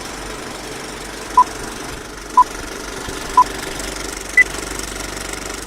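Electronic beeps over a steady mechanical rumble: three identical short beeps a second apart, then a fourth, higher beep, in the pattern of a race-start countdown signal.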